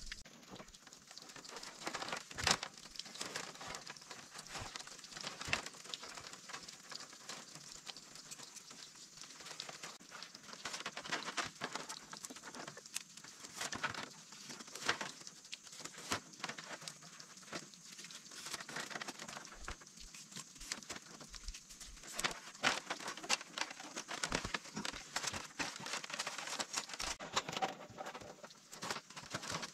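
Irregular rustling and crackling of dry material, a dense run of small clicks with a few louder snaps.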